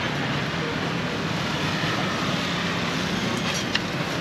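Steady background noise of a busy roadside food stall, a continuous hum and hiss, with a couple of light clicks near the end.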